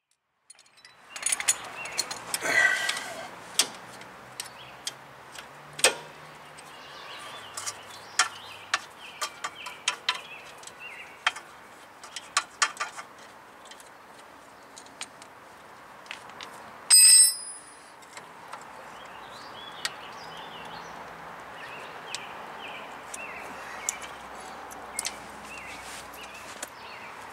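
Scattered clicks and knocks of metal tools and brake parts being handled, with one brief bright metallic ring about seventeen seconds in.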